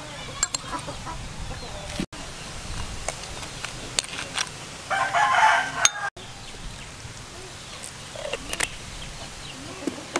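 A chicken calls loudly for about a second, around five seconds in, over a few light clicks of a metal spoon.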